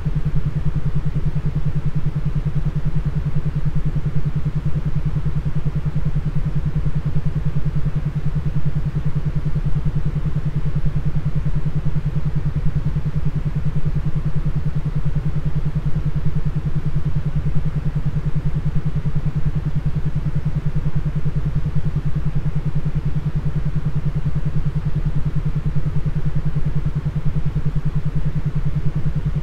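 Brainwave-entrainment 'beat' track of the binaural-beat kind: a steady, low droning tone with a fast pulsing flutter over a low rumble, with no melody or rhythm.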